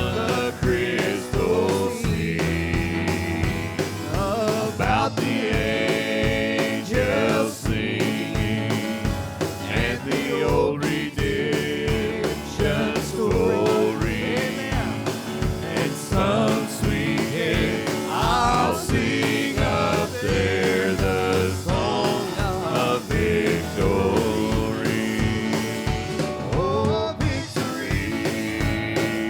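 Church worship band playing a gospel hymn with a steady beat, with singing over it.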